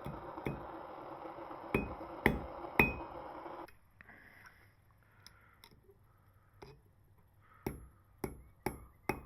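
Hammer blows forging hot gold ring stock: four sharp, ringing metal strikes over the first three seconds above a steady running noise that cuts off suddenly, then after a quiet pause four more strikes near the end.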